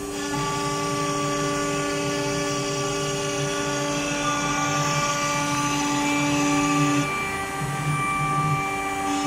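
ATC CNC router's spindle running with a steady high whine of several tones while the head works a wooden board, the drive motors humming with a pulsing beat underneath. The tones shift a few times, about four and seven seconds in, as the machine changes its motion.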